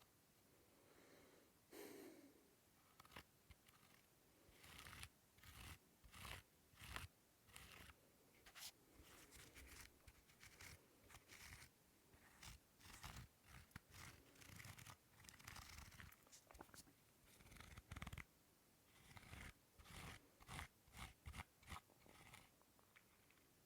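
Small objects handled for ASMR: quiet, irregular crisp scratching and tapping strokes, each a few tenths of a second, some in quick runs of several.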